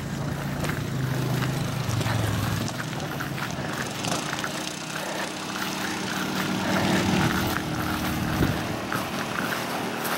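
Motor vehicle engines running steadily, with one engine note giving way to a higher one about two and a half seconds in. Scattered light clicks and rustles run over it.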